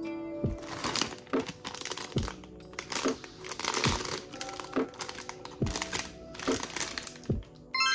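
Plastic or paper packaging crinkling and rustling in quick crackles as a package is handled and opened, stopping near the end. Background music with a steady beat plays throughout.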